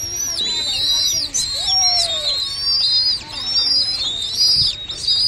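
Downy raptor chicks giving a steady stream of high-pitched, arching, whistled begging calls, several notes a second and overlapping, as they are hand-fed.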